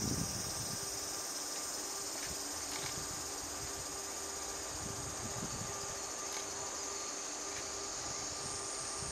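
Steady, high-pitched insect chorus, a continuous even drone with no pauses.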